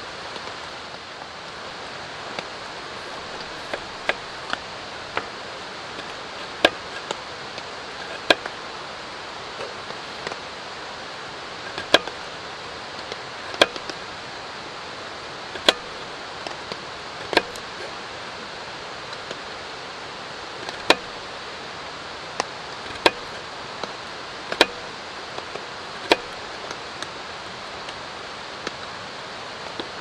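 A small kitchen knife tapping and cutting on a wooden cutting board as a carrot is carved, one sharp tap every second or two at an uneven pace. Under it runs a steady hiss of rain and running water.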